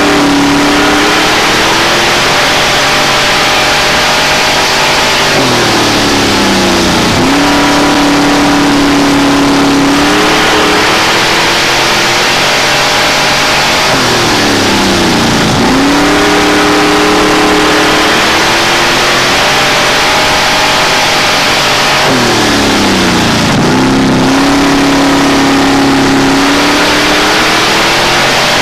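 Street stock race car's engine at racing speed, heard from inside the cockpit over a steady rushing noise. Its note drops as the driver lifts for a turn, then climbs sharply and holds at full throttle down the straight, three times over.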